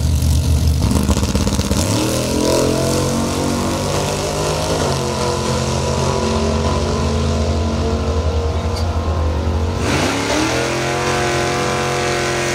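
Two drag-racing cars' engines running hard at the starting line, then launching and accelerating down the strip; the engine pitch climbs about two seconds in and again near the end as they pull through the gears.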